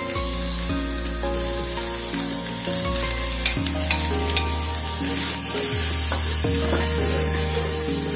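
Chopped red chillies and ground spice paste sizzling in hot oil in a wok, stirred with a spatula. There are a few short scrapes and clicks from the spatula, and background music plays under the sizzle.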